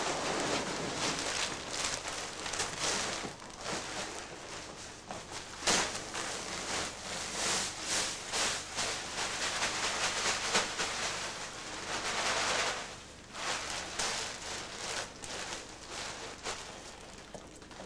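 Large paper-lined sacks rustling and crackling as they are handled and tipped out, with the loose contents sliding out onto a heap, over a faint steady low hum.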